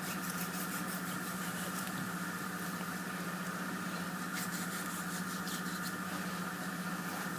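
A steady machine hum with a higher whine above it, and a few faint short ticks near the start and about four seconds in.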